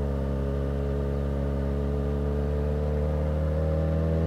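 Yamaha XJ6N motorcycle's 600 cc inline-four engine running steadily under way, its pitch rising gently over the last second or so as the revs climb.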